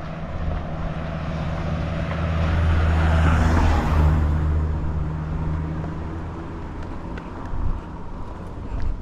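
A car drives past: its low engine hum and tyre noise build to a peak about three and a half seconds in, then fade away.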